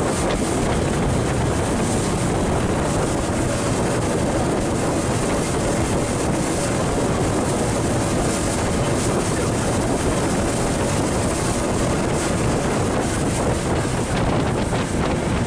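Steady rush of wind buffeting the microphone, with water and engine noise from a boat under way across choppy water.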